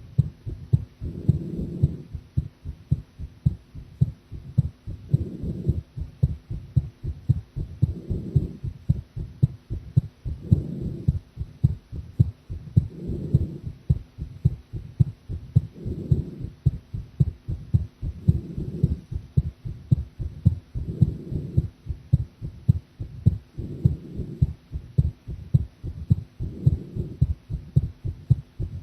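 A woman's heart beating in a steady run of low thumps. A softer swishing swell comes every two to three seconds.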